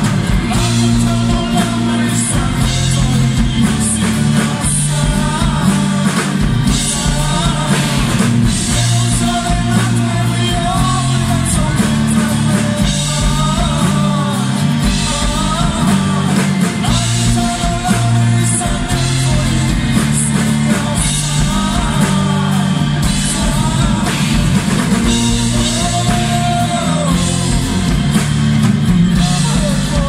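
Live acoustic rock band playing: strummed acoustic guitars, acoustic bass guitar and a drum kit, with a sung melody over them.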